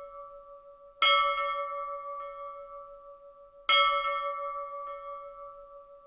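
A bell struck twice, about a second in and again about two and a half seconds later. Each stroke rings on with a few steady tones and slowly fades, and the tail of an earlier stroke dies away at the start.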